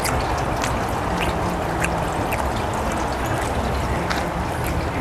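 Steady rain falling, with scattered sharp drips landing close by.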